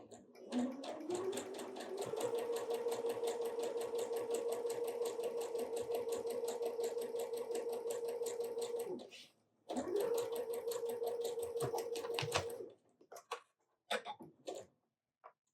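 Electric sewing machine stitching a seam. The motor speeds up over the first second or two, then runs steadily with rapid needle strokes, stops briefly about nine seconds in, and runs again for about three seconds. A few light clicks and knocks of handling follow near the end.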